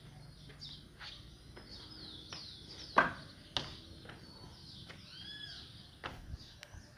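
Birds chirping again and again in short, falling high-pitched calls, with one arched, whistled call a little after the five-second mark. A sharp knock about three seconds in is the loudest sound, with a few lighter clicks after it.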